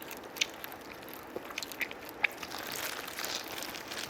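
Fried chicken being bitten and chewed with crisp, irregular crunches.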